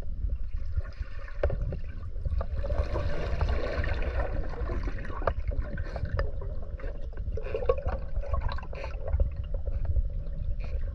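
Diving fins squeaking underwater, in several squeaky stretches, the clearest a few seconds in and again past the middle, over a steady low rumble of moving water.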